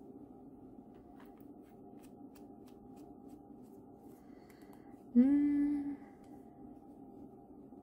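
Faint clicks and taps from a plastic diamond-painting drill pen being worked in the hands, its plunger pressed with nothing coming out. About five seconds in, a woman gives a short rising "hmm", the loudest sound.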